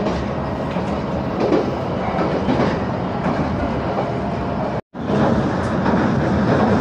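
Train running, heard from inside the carriage: a steady rumble of wheels on rails with some clatter. The sound cuts out for an instant about five seconds in, at an edit.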